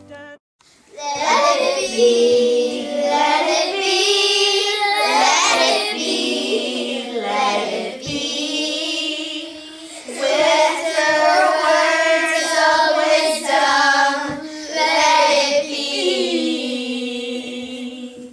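Group of young girls singing a song together, their child voices mostly in unison.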